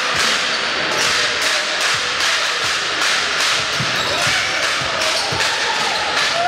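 Basketball dribbled on a hardwood court: a string of bounces over a steady background of voices in the hall.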